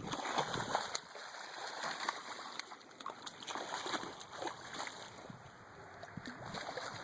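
Hooked channel catfish splashing at the water's surface as it is reeled in, in irregular uneven splashes.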